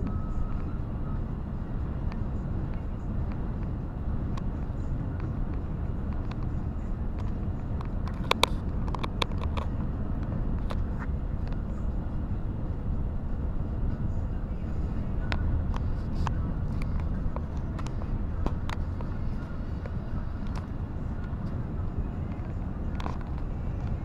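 Steady low rumble of engine and road noise inside a vehicle's cab while cruising on a motorway. A few sharp clicks come about eight to nine and a half seconds in, with scattered single ticks afterwards.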